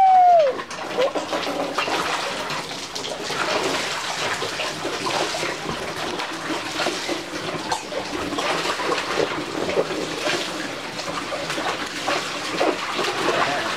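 Water splashing and sloshing in a shallow inflatable kiddie pool as two small children slap and kick at it, an uneven run of small splashes.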